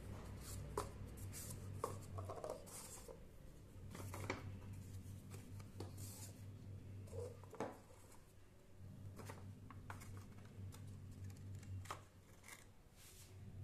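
Faint handling sounds of paper cups and cardboard pieces being picked up, set down and slid on a tabletop: scattered light taps, clicks and rustles over a low steady hum.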